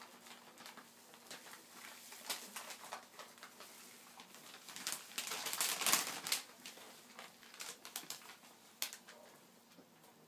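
Foil chip bag crinkling and crackling in irregular bursts as a Jack Russell terrier moves its head about inside it, loudest around the middle when the dog paws at the bag.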